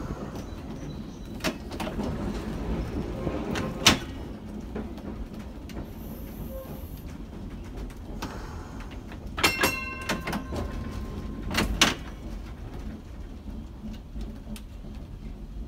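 Vintage Montreal streetcar rolling slowly over the track, a low rumble from the car broken by several sharp metallic clanks and knocks. About two-thirds of the way through there is a brief ringing metallic tone, and a clank follows about two seconds later.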